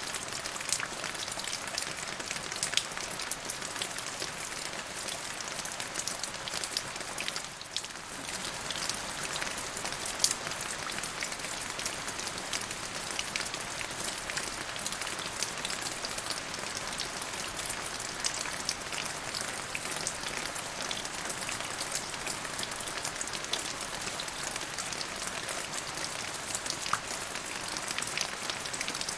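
Steady rain falling, a dense patter of drops with many sharper single drop hits, easing briefly about eight seconds in.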